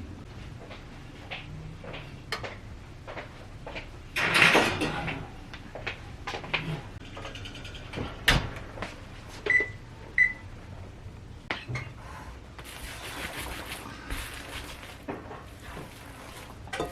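Kitchen handling sounds: scattered clicks and knocks of things being moved and set down, with a loud rustle about four seconds in and two short beeps from an appliance's keypad midway through.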